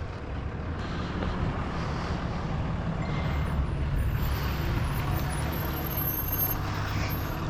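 A motor vehicle's engine running steadily at low revs: an even, deep rumble that holds throughout.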